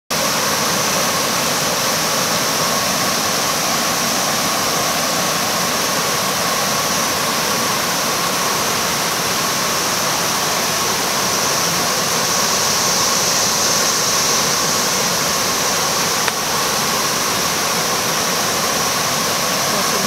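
Cicadas buzzing in a steady, high, unbroken drone that swells slightly about two-thirds of the way through, over the continuous rush of creek water running across rocky shoals.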